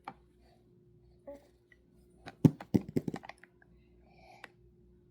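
A quick run of sharp knocks and clatters on a hard surface, about a second long, halfway through, over a faint steady hum.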